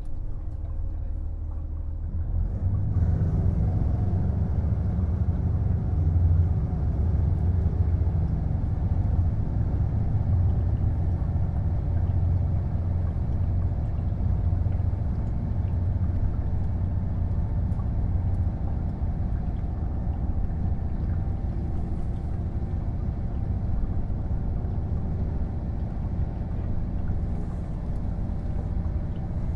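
Onboard running sound of a KiHa 48 500-series diesel railcar: the diesel engine's low drone grows louder about two and a half seconds in and then holds steady as the car runs.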